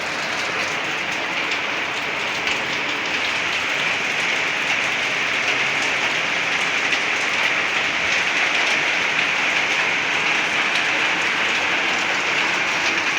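Heavy rain falling and pattering on surfaces in a steady hiss, growing slightly heavier over the span.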